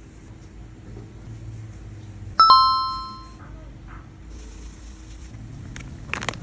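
A single bright metallic ding about two and a half seconds in, ringing with a few clear tones and fading over about a second; a couple of small clicks near the end.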